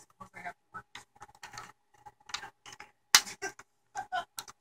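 Irregular small clicks and scratches of hands and a tool working at the plastic bezel strip above an HP Compaq nc6400 laptop's keyboard, with one sharper click about three seconds in.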